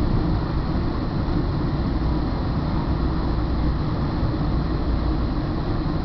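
Northstar commuter train running, heard from inside the passenger car: a steady, even rumble with most of its weight in the low end.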